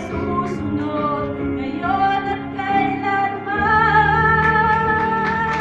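A woman singing a Tagalog worship song into a handheld microphone over instrumental accompaniment. About three and a half seconds in she holds a long, wavering note.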